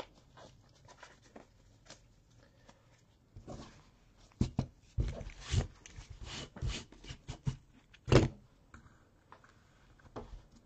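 A run of clicks and light knocks of something being handled, starting about three and a half seconds in, with the loudest knock about eight seconds in.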